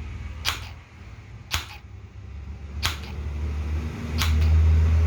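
A repaired car central-locking actuator, with its small 12 V DC motor, snapping its plunger out and back as 12 V is applied to it. There are four short, sharp clicks about a second apart over a low steady hum, and the actuator is working again.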